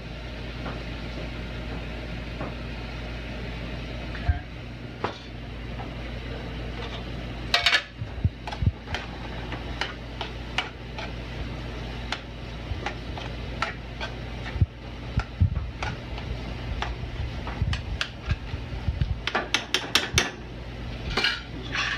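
Metal spoon clinking and scraping against an aluminium sauté pan as pasta in cream sauce is stirred. The clinks come in scattered bunches, a sharp cluster about eight seconds in and a quick run near the end, over a steady low hum.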